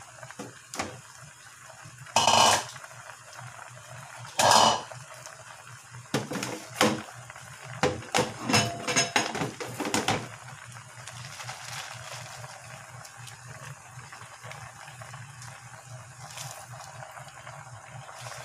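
A metal utensil knocking and scraping against a cooking pot: two sharp knocks a couple of seconds apart, then a busier run of clinks and scrapes with a brief metallic ring. Underneath is the steady bubbling of the pot on the boil.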